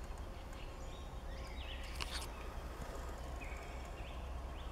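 Quiet forest ambience: a few faint, short bird chirps, a brief rustle about two seconds in, and a low steady rumble underneath.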